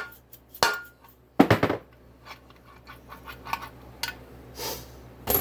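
A rubber mallet knocks once on the end of a freshly installed crankshaft, a solid knock about a second and a half in, to seat it so it turns freely. Lighter metal clinks and knocks of the engine case and tools being handled come before it and near the end.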